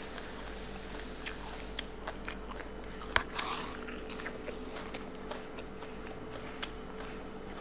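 Small clicks and crunches of fingers picking at fried food and of chewing, the sharpest click about three seconds in, over a steady high-pitched drone.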